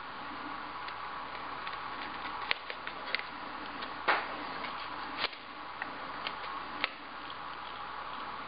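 A few faint, scattered clicks and taps as insect pins are handled and repositioned in a foam pinning board, over a steady background hiss.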